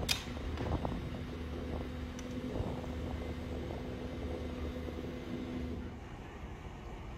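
A sharp click, then an engine running steadily: a low rumble with a steady hum that stops about six seconds in.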